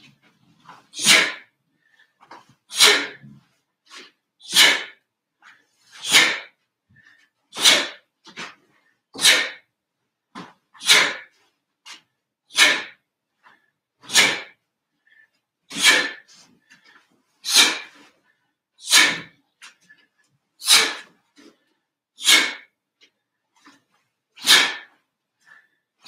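A taekwon-do practitioner's sharp, hissing exhalations, one with each movement of the pattern: about fifteen, evenly spaced roughly every second and a half, with fainter breaths and rustles between them.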